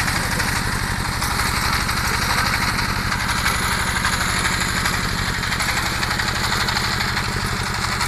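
Small water pump engine running steadily, with a fast even firing beat.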